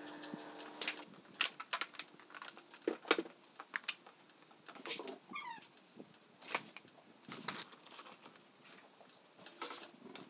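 Scattered clicks and knocks around a horse standing on cross-ties in a barn aisle, from shifting hooves and halter and tack hardware. A short falling squeak comes about five seconds in. A steady hum stops about a second in.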